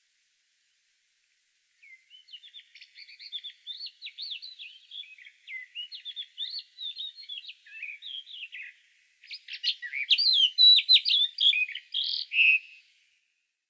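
A songbird singing a long, rapid, varied warbling song of quick sliding notes, in two phrases: the second, starting about nine seconds in, is louder.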